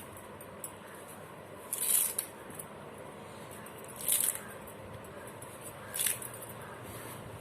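Fresh coriander being cut: three short crisp cuts about two seconds apart.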